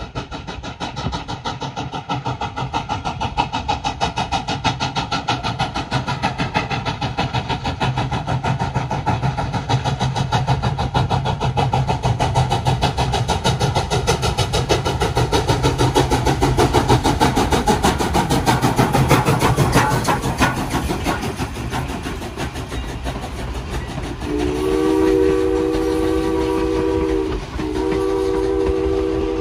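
Canadian National #89 steam locomotive running past with a fast, even rhythm that grows loudest past the middle and then fades. About 24 seconds in, its steam whistle sounds a long chord of several tones, breaks off briefly, and starts a second long blast.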